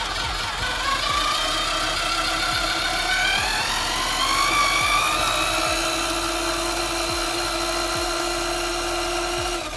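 Electric drill motor driving a motorcycle's rear wheel through a chain. Its whine rises in pitch over the first few seconds as it speeds up, then holds steady.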